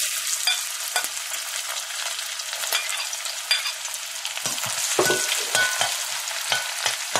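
Sliced onions hitting hot cooking oil and sizzling at once, with a metal spoon stirring them and knocking and scraping against the metal pot; the spoon knocks come more often in the second half.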